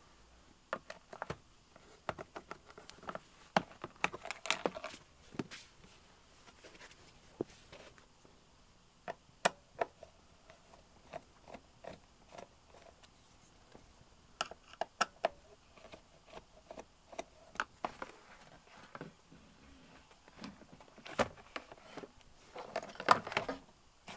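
Screwdriver work on an Acura Integra's plastic center console: scattered light clicks and small rattles as the console screws are worked out. Near the end comes a louder patch of plastic scraping and rattling as the console piece is pulled loose.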